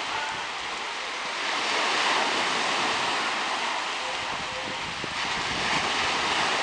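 Black Sea surf washing onto the shore, swelling louder about two seconds in and again near the end.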